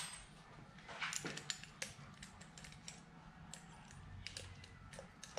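Faint, scattered light clicks and small metallic taps of hand tools and throttle parts being handled while loosening small hex cap screws, over a faint low hum.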